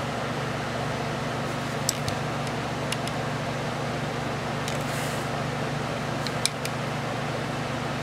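Steady fan hum with a few light clicks, the sharpest about six and a half seconds in, as a handheld infrared thermometer is handled.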